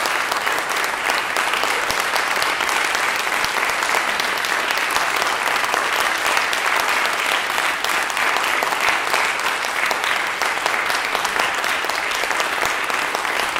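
Audience applauding steadily: dense, even clapping from a concert hall full of listeners.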